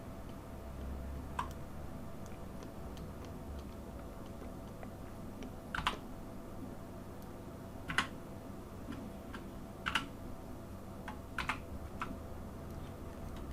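Scattered clicks of computer keyboard keys, a few sharp keypresses every couple of seconds, over a faint steady low hum.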